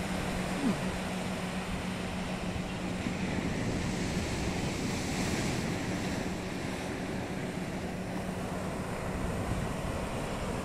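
Sea surf breaking and washing up a sandy beach, a steady rushing hiss of waves, with wind buffeting the microphone. A faint steady low hum runs underneath and stops near the end.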